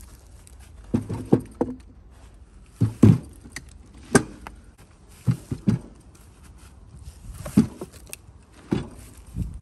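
A series of irregular knocks and thuds as log rounds are handled with steel log tongs and loaded into a wooden box cart, with footsteps in dry leaves and the clink of the metal tongs.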